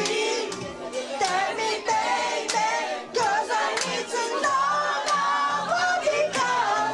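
A man singing into a hand-held microphone, his voice sliding up and down in pitch, with sharp breaks between phrases.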